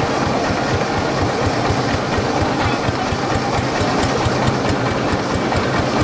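Long-tail motorboat engine running steadily under way, with a rapid, even firing beat, heard from aboard the boat.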